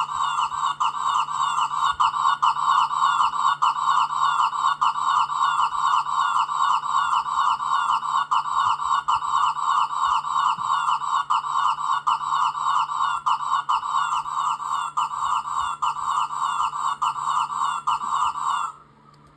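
A cartoon sound effect looped over and over: a rapid warbling chatter, about four repeats a second, that cuts off suddenly near the end.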